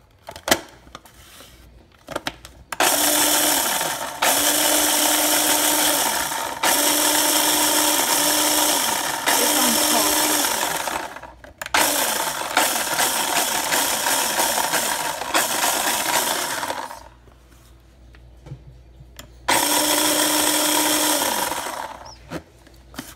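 Small electric mini food chopper grinding large sugar sprinkles into finer bits: the motor whirs over a noisy grinding, run in pulses. It starts about three seconds in, pauses briefly near the middle, stops for a couple of seconds, then runs once more near the end, its hum dropping away each time it stops.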